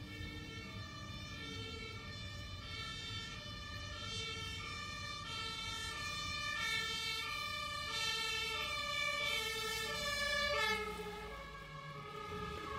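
Fire engine's two-tone siren, its two notes alternating about every half second. It grows louder, then drops in pitch and fades about eleven seconds in as the fire engine passes. Heard from inside a moving car over low engine and road rumble.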